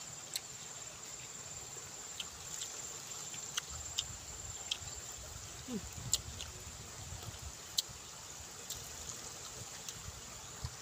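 Insects in the surrounding fields droning steadily at one high pitch, with scattered sharp clicks and smacks of someone eating rice by hand.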